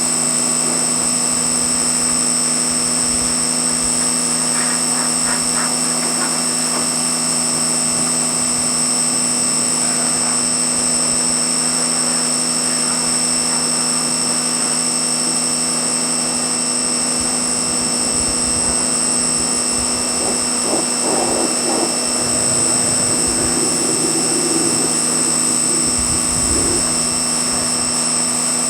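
Pressure washer running steadily, a constant machine hum with a high whine over it.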